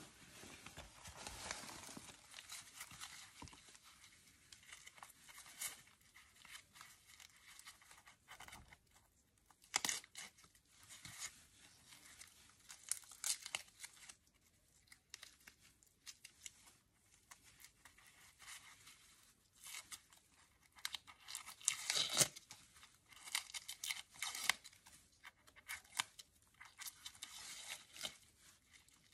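Dry, papery outer scales and old roots of amaryllis bulbs being scraped, cut and torn away with a knife and fingers: irregular crackling, tearing and scraping, loudest about three-quarters of the way through.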